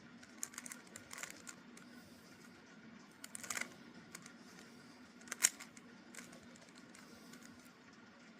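Rubik's Cube layers being turned by hand: short clusters of quick plastic clicks a second or two apart, the loudest about five and a half seconds in, over a faint steady hum.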